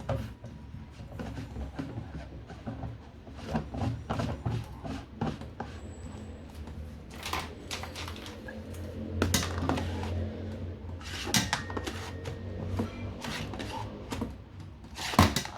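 Irregular plastic clicks, knocks and scrapes as reverse osmosis filter cartridges and their plastic housings are handled and fitted, over a low hum.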